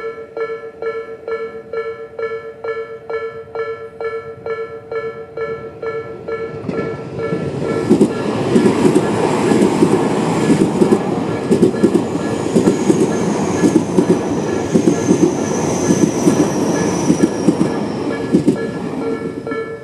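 Japanese level-crossing alarm, the electronic Tobu 'B' tone, ringing in an even repeating chime about twice a second. From about seven seconds in, an electric train passes over the crossing, with a rumble, rapid clicks of wheels over rail joints and a high whine that slowly falls, before the alarm is heard alone again near the end.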